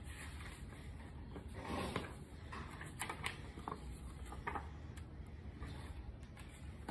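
Faint rustling and flicking of paper pages as a printed manual is leafed through by hand, with several short crisp rustles spread through.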